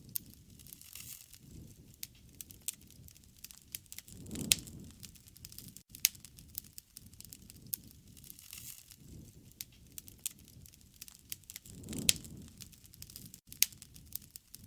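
Wood fire crackling, with frequent sharp pops and snaps over a soft low rumble of flame. It flares up briefly louder twice.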